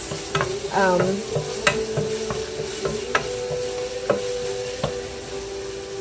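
Chicken and sauces sizzling as they fry in a pan while being stirred, with a utensil clicking against the pan every second or so.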